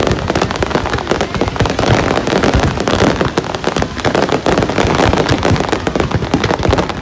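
Fireworks going off in a dense, continuous barrage, many bangs and crackling pops in quick succession with no pause.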